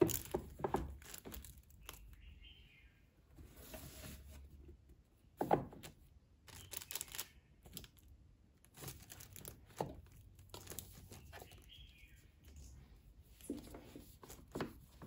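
Paperback manga volumes sliding and rubbing against one another and knocking on a shelf as they are shuffled and pushed into line by hand. The handling comes in irregular rustling scrapes with a few sharper knocks.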